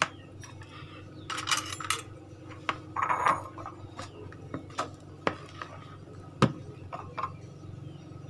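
Silicone spatula scraping around a mixing bowl and knocking against its rim as thick cake batter is worked and scooped, with scattered clinks of bowls, over a low steady hum. The sharpest knock comes about six seconds in.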